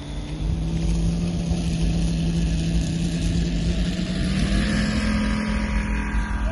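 Model aircraft engine (UMS 125 cc) of a quarter-scale Focke-Wulf 190 running at high power on the takeoff run. Its steady note rises in pitch about four to five seconds in as it speeds up.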